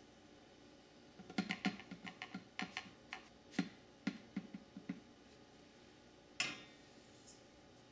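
Granulated sugar pouring from a glass measuring cup into a stainless steel saucepan: a faint, uneven patter of small ticks for a few seconds, then one sharper clink about six and a half seconds in.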